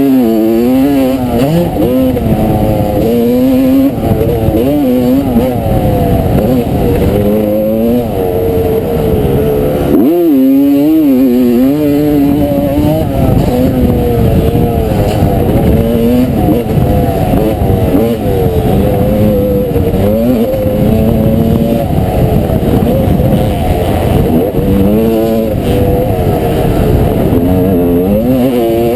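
1989 Honda CR250R's 250cc two-stroke single-cylinder engine racing on a motocross track, its pitch rising and falling continually as the throttle is worked, with a sharp drop and climb about ten seconds in.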